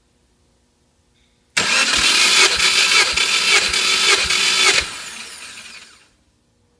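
Starter motor cranking a Subaru EJ205 engine, typical of a compression test, with a steady beat of about two pulses a second as the engine comes up on compression. It starts suddenly, stops after about three seconds, and the starter whine fades out over the next second.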